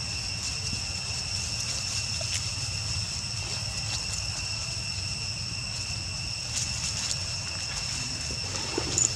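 Steady outdoor ambience: a continuous high-pitched drone over a low rumble, with a few small clicks near the end.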